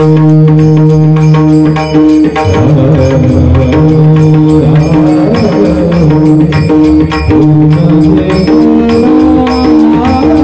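Indian devotional bhajan music: held melodic notes that step between pitches, over a steady quick drum beat with bright metallic strikes.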